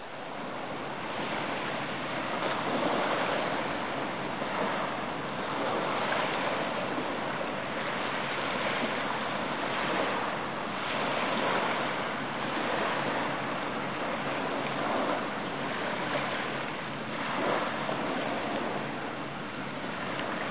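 Small waves washing against a rocky saltwater shore, a steady wash that swells and eases every couple of seconds.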